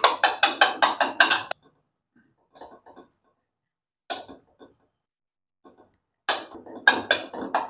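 Metal tongs chopping and scraping chicken against a non-stick wok, breaking it into a coarse mince. The tongs clack against the pan in a fast run of strikes about six a second, then only a few scattered taps, then another fast run near the end.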